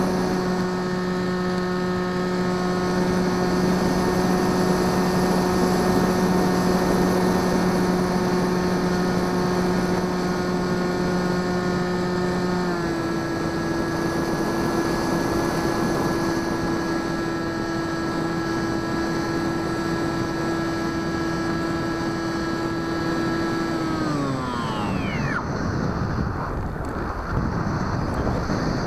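Bixler 2 RC plane's brushless electric motor and pusher propeller whining at a steady pitch over rushing wind on the onboard microphone. About halfway through the pitch steps down slightly, and near the end it slides down and stops as the throttle is cut, leaving only the rush of air as the plane glides.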